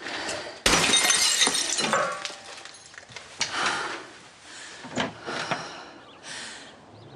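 Glass smashing: a sudden loud crash under a second in, with shards clattering and tinkling for about a second after it. A few quieter knocks follow.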